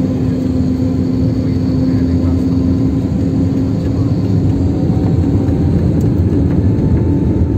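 Airliner cabin noise from a window seat: the jet engine running with a steady hum over a low rumble as the plane rolls along the ground. The hum fades slightly about halfway through.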